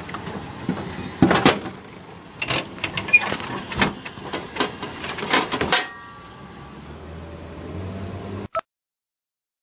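Vending machine dispensing a glass bottle: a run of hard clunks and knocks as the bottle lands in the delivery bin and is pulled out past the swinging flap, ending in a brief glassy ring. A low steady hum follows, then the sound cuts off suddenly.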